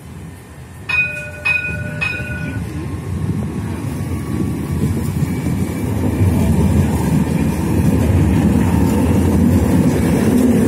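An Alstom Citadis Dualis tram-train sounds its warning bell three times, about half a second apart, then rumbles past on the track, its running noise growing steadily louder as it draws level.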